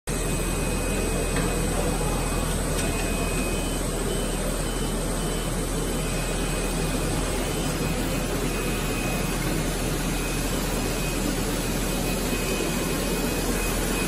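Plastic hose extrusion line running: a steady machine drone with a low hum and a faint high whine.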